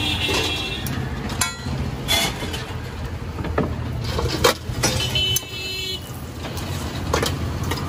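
Steel tongs and a ladle clinking and scraping against a large iron tawa as parathas are turned and basted. A few sharp clicks stand out over a steady low hum of street traffic.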